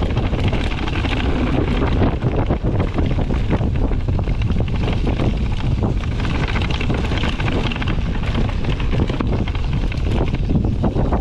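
Strong wind buffeting the microphone over the tyre roar and clattering of an Orbea Rallon mountain bike riding a rough descent, with frequent short rattles and knocks.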